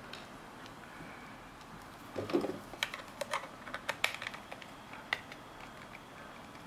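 Light, irregular plastic clicks and taps as a USB cable's plug is handled and fitted against a black plastic wall charger, after a brief rustle of the cable about two seconds in.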